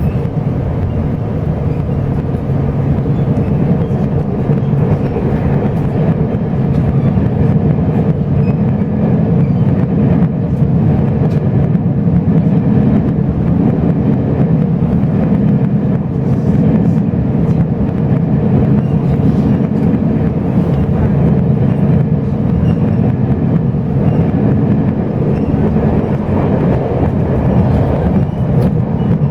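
Chu-Kuang Express passenger train running along the track, heard from inside the carriage: a steady, loud rumble of wheels on rails with faint scattered ticks.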